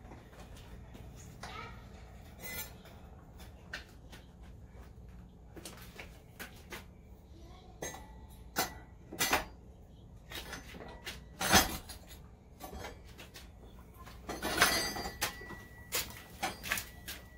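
Scattered metallic clinks and knocks of parts and tools being handled on a dirt bike, with one sharp knock a little past the middle and a short burst of clatter later on.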